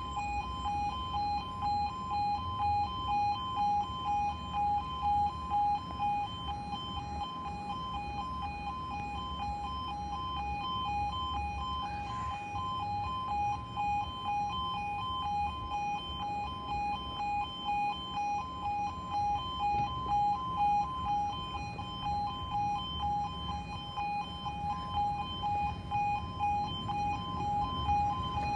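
Level crossing warning alarm sounding with the barriers down: two alternating high tones pulsing about twice a second, steady throughout.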